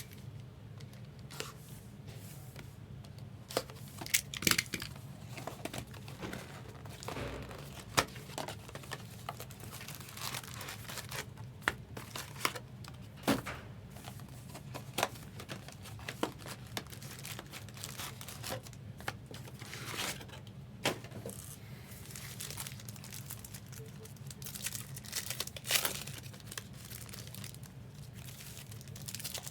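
Trading card packs being torn open, with the foil wrappers crinkling and crackling in irregular bursts, over a steady low hum.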